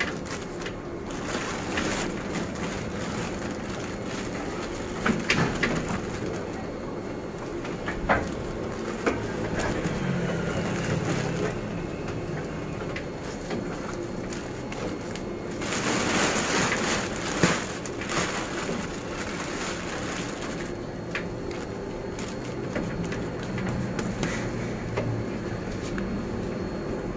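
Hands pressing and packing damp tofu pulp down into a plastic-lined bucket, the plastic sheet rustling and crinkling with scattered soft clicks. The rustling grows louder for a second or two about 16 seconds in.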